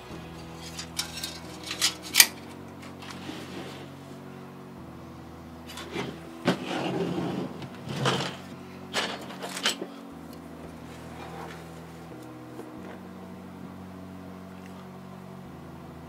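Background music of held chords that change every few seconds. Handling of a metal computer case and its parts clatters and clicks over it, about a second in and again in a burst of knocks and rattles between about six and ten seconds in.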